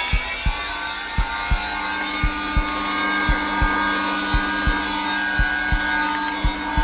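Zelmer vacuum cleaner running at its lowest setting, a steady motor noise with a high whine and a low hum. Over it a heartbeat thumps in low double beats, lub-dub, about once a second.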